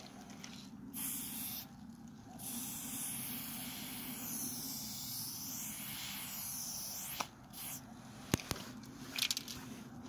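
Aerosol spray paint can hissing as red paint is sprayed onto a rough wall: a short burst about a second in, then a long spray of about five seconds, then a brief puff. A sharp click and a few short knocks follow near the end.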